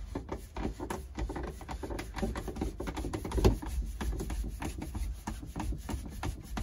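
Black plastic sink drain trap being hand-tightened and worked at its slip-nut joints: rapid, irregular clicking and rubbing of plastic on plastic, with a louder knock about three and a half seconds in.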